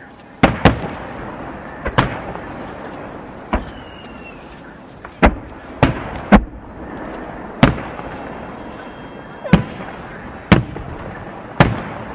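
Aerial fireworks shells bursting overhead: about a dozen sharp booms at uneven intervals, a few in quick pairs, each trailing off in an echoing rumble.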